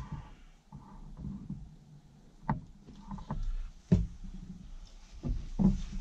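Pine boards being handled and set down on a wooden floor during glue-up of a drawer box: a few sharp wooden knocks, the loudest about four seconds in, with low rubbing and shuffling between.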